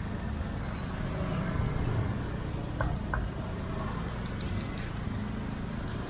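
Motor scooter engines running in slow, congested street traffic, a steady low rumble. A couple of sharp clicks come about three seconds in, and light ticking near the end.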